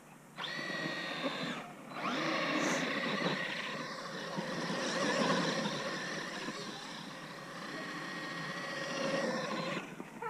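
Traxxas Maxx electric RC monster truck's brushless motor and drivetrain whining as it accelerates and drives through snow. The whine rises in pitch about half a second in, drops out briefly near two seconds, then rises again and carries on until just before the end.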